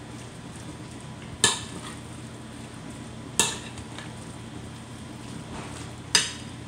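A spoon stirring potato salad in a glass baking dish, knocking against the dish three times about two seconds apart.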